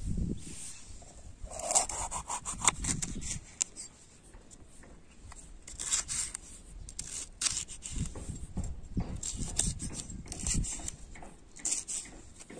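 Knife slicing a green bell pepper on a wooden stump: crisp cuts in several short runs, each a quick series of clicks.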